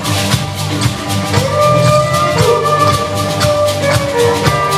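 Music with a steady drum beat under held and gliding melody notes.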